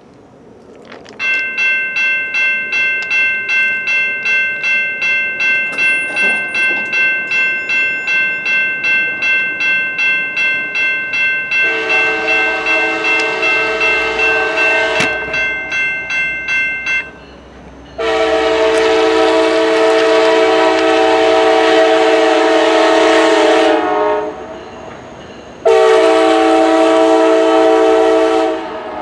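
Grade-crossing warning bell ringing about twice a second, then the lead EMD F40PH-2 locomotive's air horn sounding for the crossing. The horn gives two long blasts and a shorter third, and the bell stops near the end of the first blast.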